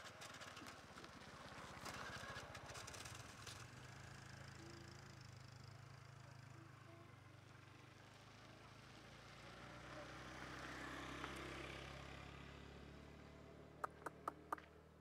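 Faint low engine hum, swelling and fading, with a quick run of four sharp clicks near the end.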